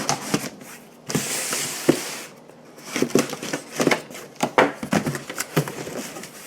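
Keyboard packaging being handled and opened: scattered knocks and clicks, with a rustling slide lasting about a second shortly after the start.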